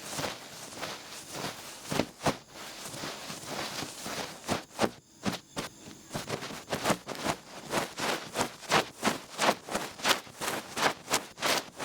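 Duck-feather ear pick brushing and scratching for ear-cleaning ASMR. It starts as a soft continuous rustling, then from about halfway turns into quick rhythmic brushing strokes, about three or four a second.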